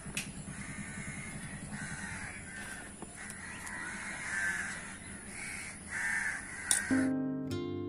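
Crows cawing over and over, a run of separate caws, some overlapping. Near the end an acoustic guitar strum starts.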